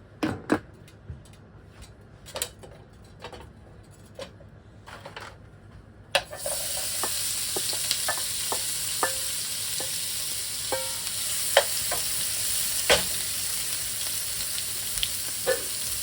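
Utensils clicking and knocking for about six seconds, then food goes into a hot frying pan and starts sizzling loudly and steadily, with scattered clicks of stirring.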